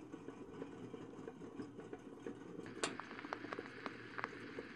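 Wax-cylinder phonograph running with a steady mechanical whir, then a sharp click about three seconds in as the reproducer needle is set onto the cylinder, followed by scattered crackles of the needle on the wax.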